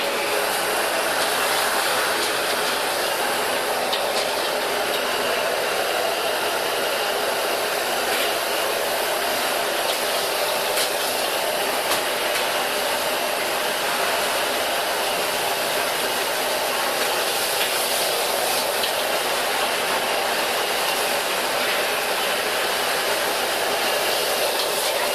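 A wok's gas burner gives a steady rushing noise while food sizzles in the wok and a metal ladle stirs it, with a few light clinks of ladle on wok.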